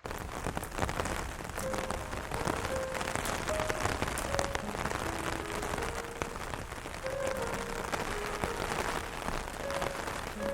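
Steady rain falling on a surface, with many separate drop ticks, under a soft, slow melody of single piano notes.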